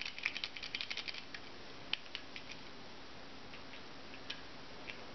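Small plastic clicks and taps as a Trackmaster toy wagon is handled: a quick flurry of clicks in the first second, then a few scattered single clicks over a faint steady hum.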